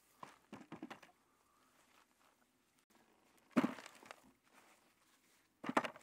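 Potatoes being gathered by hand and dropped into a plastic bucket: a quick cluster of small knocks in the first second, then two louder thuds about three and a half and near six seconds in.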